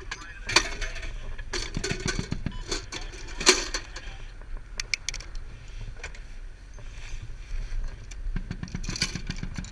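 Metal clanks and clicks of a .50 caliber machine gun being reloaded, with short rattles near 2 s and again near the end. A low, steady rumble from the vehicle's running engine lies under them.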